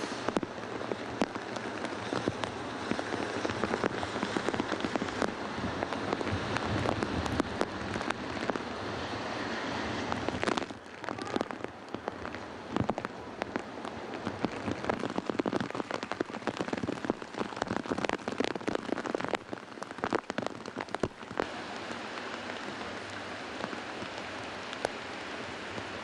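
Heavy typhoon rain hitting hard surfaces: a dense hiss crossed by many sharp drop impacts, dipping briefly about ten seconds in.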